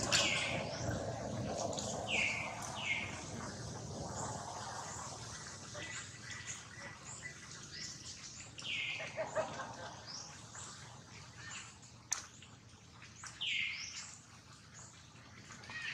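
Birds chirping: several short chirps that fall in pitch, spread out, with fainter high chirps and a few light clicks between them.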